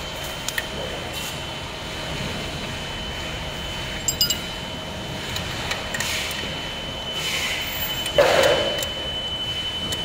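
Metal clinks of a wrench and axle hardware as the front hub-motor wheel of an electric scooter is worked loose, with a cluster of small clinks about four seconds in. A louder clunk comes near the end as the wheel is handled in the fork. Under it is a steady background noise with a faint high tone.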